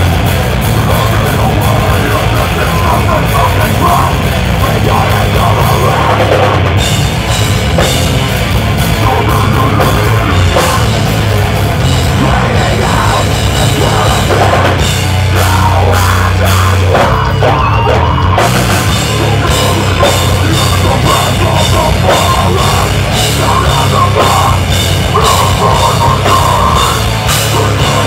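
Live deathcore band playing loud: heavily distorted electric guitars and bass over a pounding drum kit. The cymbals thin out for a few seconds past the middle, then the full-band pounding comes back in.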